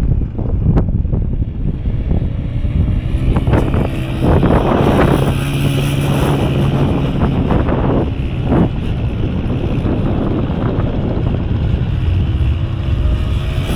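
Quad bike (ATV) engine running, heavily buffeted by wind on the microphone; a steady engine tone stands out from about four to seven seconds in and again near the end.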